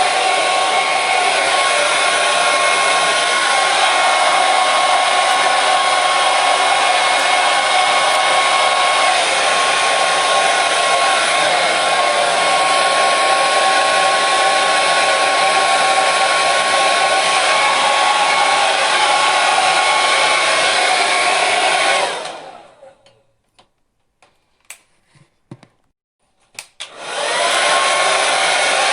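Hair dryer blowing with a steady rushing noise and a thin motor whine. About 22 seconds in it is switched off and winds down, followed by a few faint clicks in the silence. Near the end it is switched back on, and its whine rises as the motor spins up to speed.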